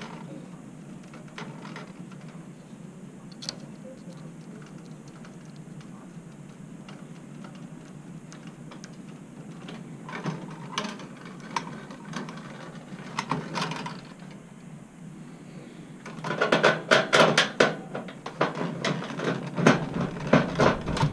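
Ballast leads being joined with twist-on wire nuts: scattered clicks and rattles of wire handling, then in the last few seconds dense runs of rapid ratcheting clicks as a wire nut is screwed tight. A steady low hum sits underneath.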